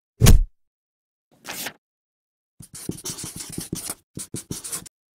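A heavy thump, then a brief swish, then a marker pen scratching across paper in a run of quick writing strokes, ending in three short separate strokes.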